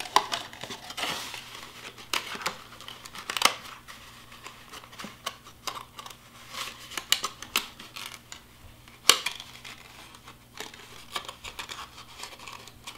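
White cardstock box being folded by hand, its bottom flaps pressed and tucked into place: irregular rustling and crinkling of stiff paper with many sharp taps, the loudest about nine seconds in.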